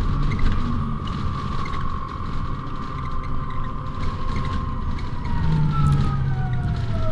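City bus in motion with a steady high whine from its drive over a low rumble. About five seconds in, the whine glides down in pitch.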